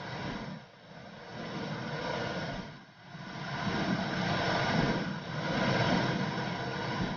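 Womb sound for soothing a baby: a dense low whooshing noise that swells and fades in slow waves, about one every two seconds.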